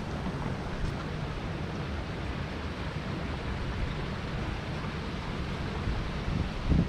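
Wind buffeting the microphone: a steady rough rumble, with a stronger gust near the end.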